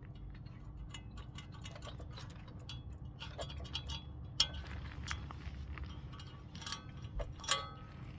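Irregular light metallic clinks and taps of small metal parts being handled, several ringing briefly, over a steady low hum.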